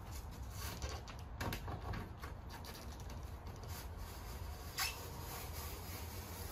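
Utility knife blade drawn along a sheet of pink extruded-polystyrene rigid foam board, scoring it in faint scratchy strokes, with a sharp click nearly five seconds in. A low steady hum runs underneath.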